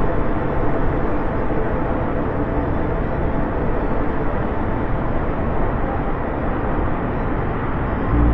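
Large waterfall pouring into a misty gorge: a steady, unbroken rush of falling water.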